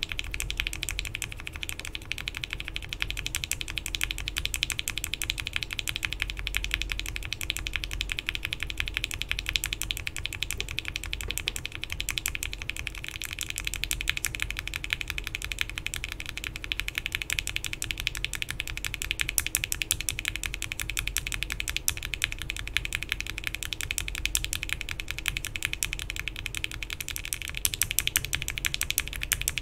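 Continuous fast typing on a Bakeneko60 custom mechanical keyboard with an FR4 plate, case foam and PBT keycaps. It is fitted with linear frankenswitches: Gateron Milky Yellow bottom housings, UHMWPE stems and 67g TX springs, with Gateron Ink top housings that are swapped for Cherry MX tops about thirteen seconds in. The keystrokes are rapid, overlapping clacks at an even level throughout.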